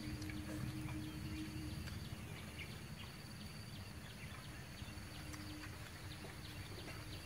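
Insects chirping steadily in a high, even pulse over a low outdoor hum, with scattered light clicks of snail shells being handled.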